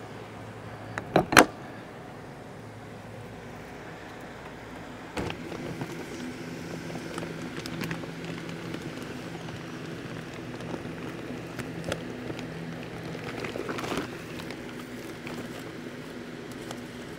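A couple of sharp knocks about a second in, then, from about five seconds on, a steady low mechanical hum with scattered faint clicks and rustles.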